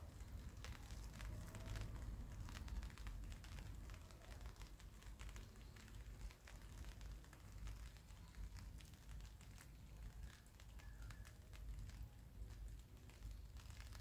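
Light rain falling, with many irregular drops ticking and crackling on surfaces over a low, steady rumble.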